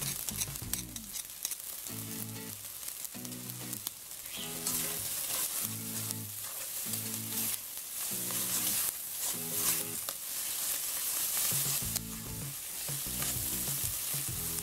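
Butter melting into frying calabresa sausage, bacon and vegetables in a pot, with a steady sizzle and the scrape of stirring. Under it, background music repeats a short pitched figure about every 0.7 s.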